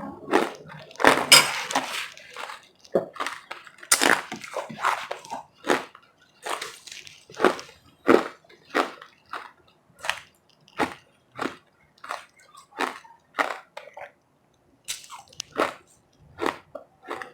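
Close-miked chewing of powdery ice: a steady run of short, sharp crunches, about one and a half a second, with a brief pause about fourteen seconds in.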